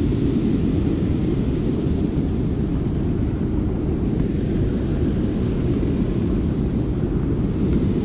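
Steady low roar of water pouring over the Barton Dam spillway on the Huron River, strongest in its deep rumble, with no pauses or gusts.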